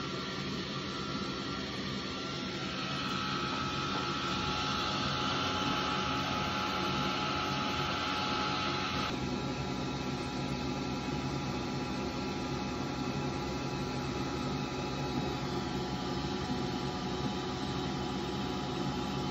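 xTool S1 20 W diode laser engraver running as it cuts and engraves a wooden sheet: a steady mechanical hum and whir with a few thin steady tones. The higher hiss grows a little a couple of seconds in, then drops suddenly about nine seconds in.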